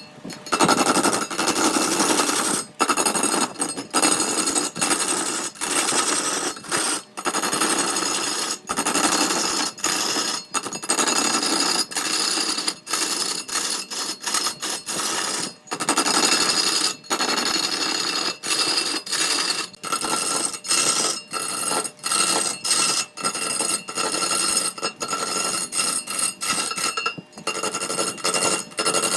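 Power tool working wood: a harsh, high whining grind that cuts out briefly every second or two as the tool is lifted and pressed back on.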